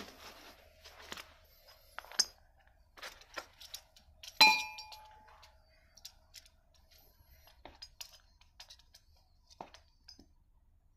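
Metal engine rebuild parts and a steel caliper clinking and tapping as they are handled on a tabletop, with one loud ringing metallic clink about four seconds in.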